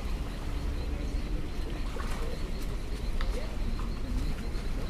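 Birds calling outdoors, among them a low dove-like cooing note, over a steady low rumble.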